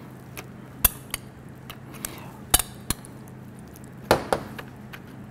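A metal spoon clinking against a glass bowl as sauce is scooped out: several sharp clinks, loosely spaced, the loudest about two and a half and four seconds in.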